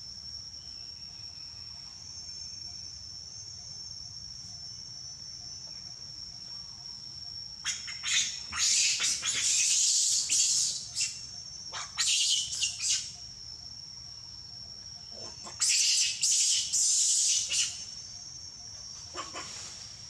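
Forest birds calling in loud, high-pitched bursts, about eight, twelve and sixteen seconds in, over a steady high-pitched whine.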